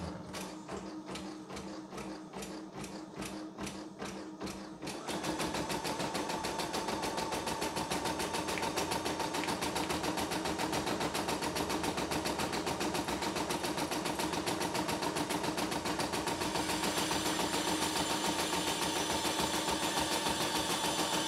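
CNY E960 computerised embroidery machine stitching out a design: a few seconds of slow, separate stitches, then about five seconds in it picks up to a fast, steady stitching rhythm with a whine.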